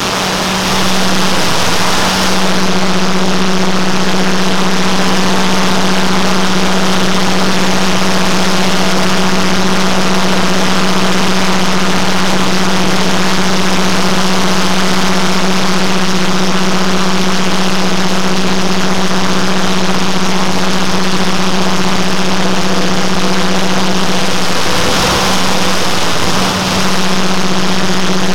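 Many overlaid copies of a jet engine sound effect playing at once, blending into one dense, steady drone with a strong low hum. It dips briefly about two seconds in and again near the end.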